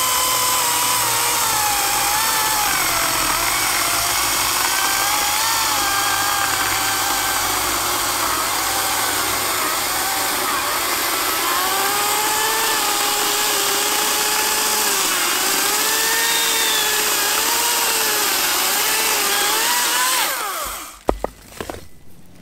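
AEG 58V battery-powered chainsaw cutting through a thick, dry eucalyptus log. Its electric motor whine dips and wavers in pitch as the chain loads up in the cut. About 20 seconds in the motor winds down and stops, followed by a thud.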